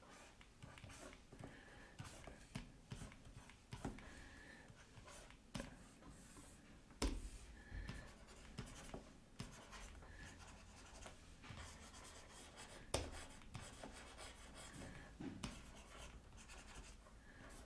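Faint scratching of a stylus drawing quick strokes on a drawing tablet, with a few light taps now and then.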